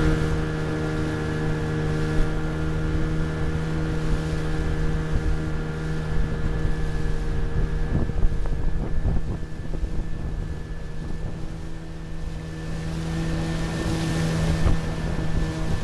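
Small boat's outboard motor running steadily at one pitch, with water rushing along the hull. The water gets rougher and splashier midway and swells into a louder rush near the end, where the boat passes broken water at a bridge pier.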